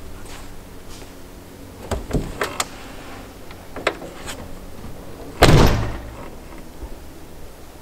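Van side door being shut: a few light clicks and knocks, then one loud slam about five and a half seconds in.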